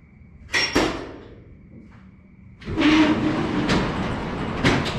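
Metal roll-up shop door. Two loud clunks about half a second in, then from about two and a half seconds on a steady rattling rumble as the door rolls up, with a few sharper knocks in it.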